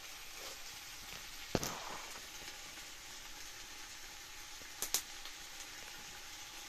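Steady sizzling hiss of potatoes cooking in a pot over a wood fire, with a sharp knock about one and a half seconds in and a quick double click near five seconds.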